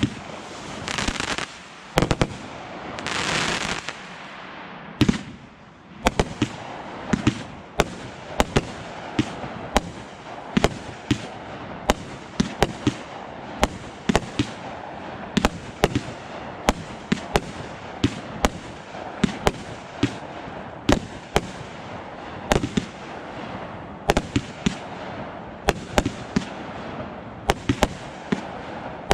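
Fireworks display: a rapid, irregular run of sharp bangs from aerial shells bursting, several a second, over a steady crackling hiss. Two rushing hisses, each about a second long, come in the first few seconds.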